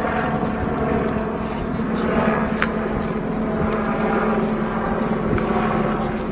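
A steady engine drone, with sharp clicks of a Rubik's cube being turned.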